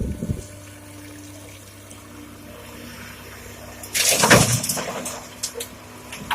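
Komatsu PC200-6 excavator's diesel engine running steadily, with a couple of knocks at the start; about four seconds in, a loud rush and clatter of stones being dumped from the bucket into the dump truck's bed, trailing off into scattered rock clicks.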